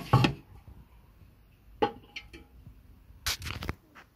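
Handling noise: a few sharp clicks and knocks of hard plastic as the bread maker is moved and handled. The loudest is at the very start, a single one comes about two seconds in, and a quick cluster follows about three seconds in.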